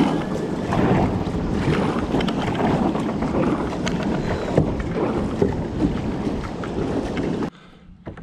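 Loud steady rush of river water around a kayak, with wind buffeting the microphone, cutting off abruptly about seven and a half seconds in.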